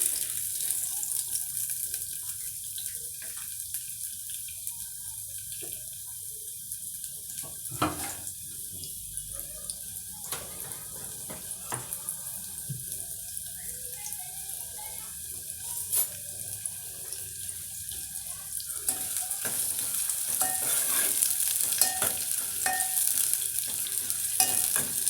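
Onions frying in cooking oil in a pan: a steady sizzle with occasional knocks of a utensil on the pan. About 19 seconds in the sizzling grows louder, with frequent stirring and scraping.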